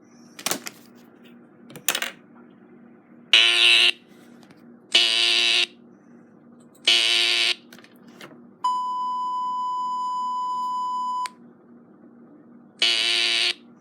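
Emergency Alert System-style signal: three harsh, buzzy data bursts about a second and a half apart, then a steady single-pitch alert tone for about two and a half seconds, then another burst near the end. Two clicks come first, over a faint low hum.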